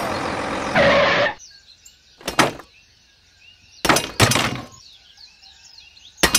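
A loud mechanical noise cuts off about a second and a half in. Then come faint bird chirps, broken by about four short, separate thuds.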